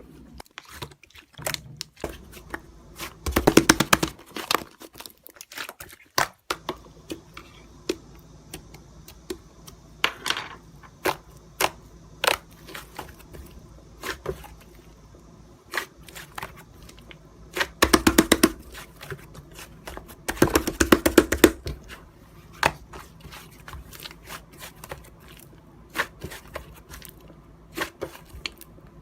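Hands squishing and pressing slime: sharp clicking pops of trapped air all through, with three bursts of dense crackling.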